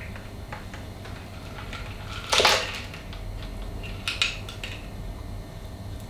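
Ice and a strainer clinking in a metal cocktail shaker tin as the shaken drink is strained into a glass, with one louder rattle about two seconds in and a few lighter clinks about four seconds in.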